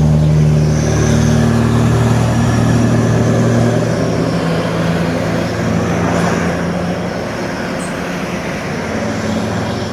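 Heavy diesel truck engine pulling hard at a steady pitch. After about seven seconds the engine note fades and the sound sinks into general road noise.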